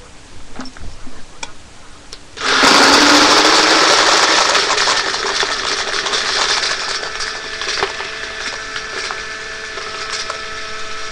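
Dye Rotor paintball loader's motor switching on about two seconds in and feeding paintballs at high speed, about 50 balls a second: a dense rattle of balls pouring out through the feed neck into a tube, loudest for the first few seconds. The motor then keeps running with a steady whine.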